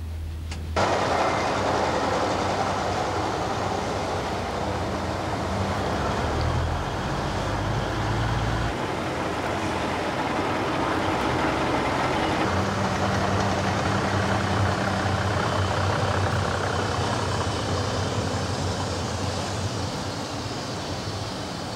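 A modern train running on the track: a steady rumbling rattle over a low droning hum, starting abruptly about a second in.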